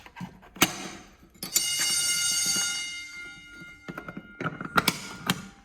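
A school fire alarm sounds briefly: one steady, shrill tone about a second and a half in, held for about a second, then cut off and echoing away down the hallway. Sharp clicks and knocks come before it and near the end.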